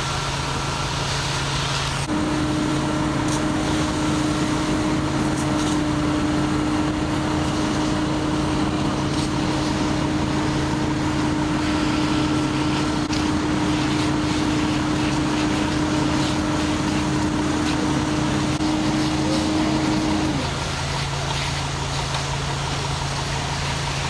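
Fire brush truck's engine running steadily to supply its hose lines, a steady low hum. A higher steady tone joins it about two seconds in and drops away about twenty seconds in, leaving the low hum.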